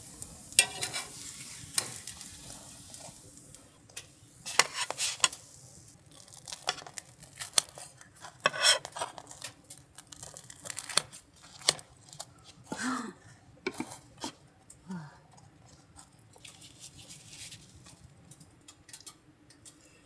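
A pancake sizzling in a cast-iron skillet, the sizzle fading over the first few seconds. Then scattered clicks and clatters of metal tongs and kitchen scissors cutting it on a plate.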